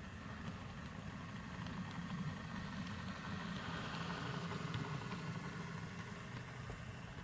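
Model diesel locomotive running along the track with a steady low engine drone that grows louder in the middle and then eases off.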